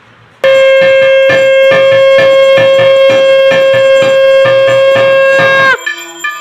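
A conch shell (shankha) blown in one long, loud, steady note that sags in pitch as the breath runs out near the end, then is blown again after a short break. A hand bell rings in a steady rhythm, about two or three strokes a second.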